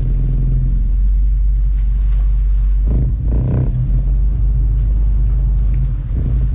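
Sightseeing boat's engine running steadily, a low drone heard from the bow deck, with a brief louder noise about halfway through.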